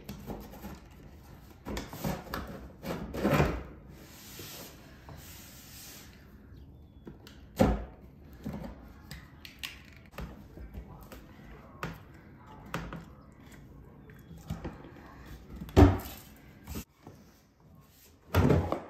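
Wooden furniture being handled: a run of scrapes and knocks early, a brief hiss, then three separate sharp thuds, the loudest about three quarters of the way through.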